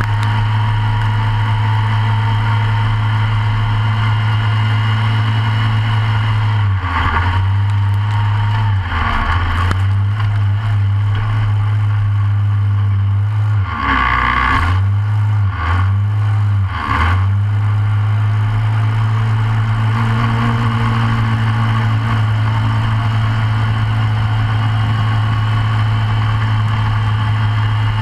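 Short course off-road kart's single-cylinder Briggs & Stratton racing engine idling steadily, close up. Its note dips and wavers briefly about five times in the middle.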